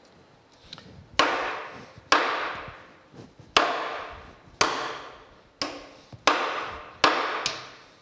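Lead hammer striking steel nuts threaded onto the studs of a steam locomotive stoker engine's cylinder head: six heavy blows about a second apart, with a few lighter taps between, each trailing off briefly. The hammering is meant to break the stuck cylinder head loose, and it is stubborn.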